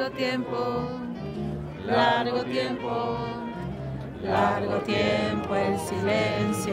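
A choir singing a slow hymn in long held notes, with phrases swelling louder about two seconds in and again just past four seconds.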